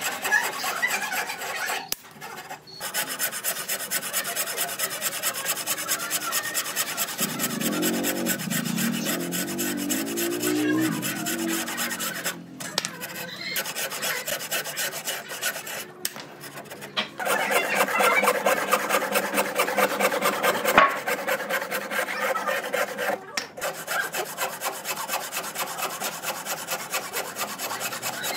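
Abrasive tool scraping across a wood surface in continuous rasping passes. It breaks off briefly a few times and is loudest for a few seconds in the second half.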